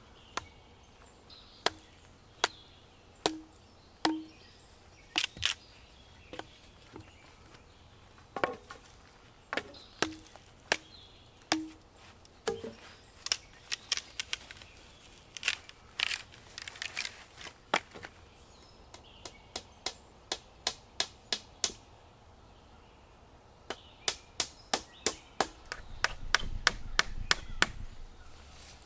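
Repeated sharp chopping strikes of a blade on wood, irregular at first, then a quick run of about three strikes a second near the end.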